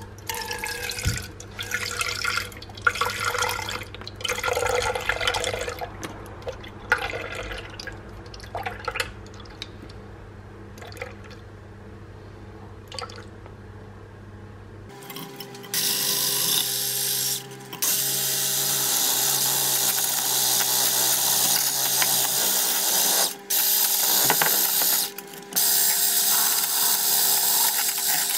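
Liquid egg white poured in spurts into a plastic jug, splashing and gurgling. About halfway in an electric hand blender starts whipping the egg whites into foam, a loud steady motor whir that stops briefly twice.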